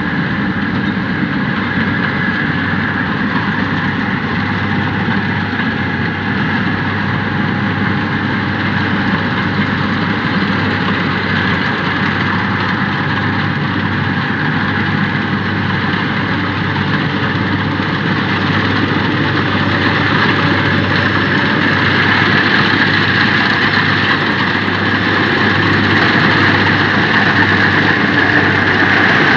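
Rice combine harvester running steadily as it cuts and threshes standing paddy, a continuous engine and machinery drone. It grows louder over the last several seconds as the machine comes close.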